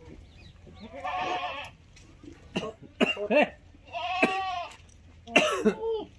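Goats bleating, several calls one after another: a long bleat about a second in, a few short ones, then two more long bleats.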